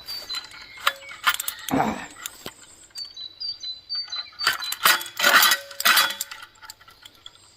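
Steel cable being pulled off the spool of a hand ratchet cable puller: metal clicking, clinking and scraping, with a few louder rattling bursts in the second half.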